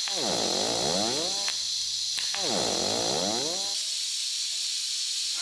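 TIG arc from an EWM Tetrix XQ 230 welder making spotArc spot welds on thin stainless plate: twice a whine sweeps down and back up in pitch as the current ramps, with sharp clicks between the spots, over a steady hiss. The whine stops near the end and only the hiss carries on.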